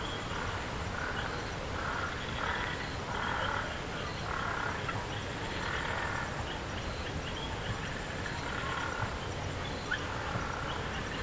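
An animal's short calls, repeated over and over, one or two a second, over a steady outdoor background.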